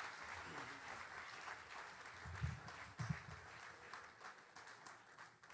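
Audience applauding, the clapping thinning out and fading near the end, with a few low thumps in the middle.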